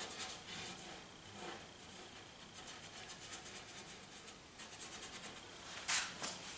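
Paintbrush scrubbing oil paint on the palette, mixing a darker gray: faint quick scratchy strokes, with one louder swish about six seconds in.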